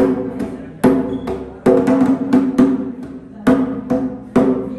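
Cununo, the Colombian Pacific hand drum, struck by hand in a steady beat, about one stroke a second with a few in quick succession. Each stroke rings with a clear, low drum tone that fades before the next.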